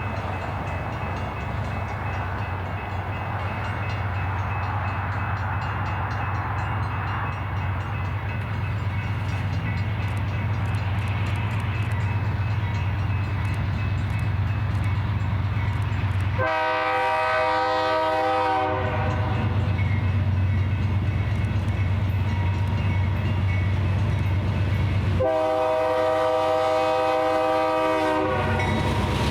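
Two GE Dash 9 diesel locomotives on a freight train, their engines running with a steady low rumble. The lead locomotive's multi-chime air horn gives two long blasts for the grade crossing, one about halfway through and one near the end.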